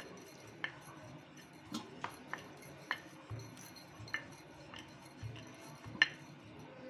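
Wooden rolling pin rolling out pizza dough on a plate, with light irregular clicks and knocks as it works back and forth, the sharpest about six seconds in, plus a few dull low thumps.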